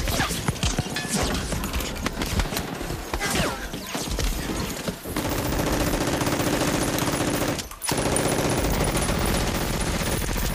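Rapid machine-gun-style gunfire sounds: scattered shots at first, then a long rapid burst from about halfway, breaking off briefly and starting again near the end.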